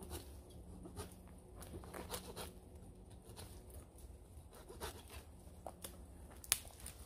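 Dry dead twigs snapped off by hand from the lower branches of small conifers: irregular crisp snaps and crackles with branches brushing. The sharpest snap comes near the end.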